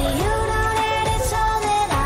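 Electronic dance-pop music: a gliding lead melody over a steady beat.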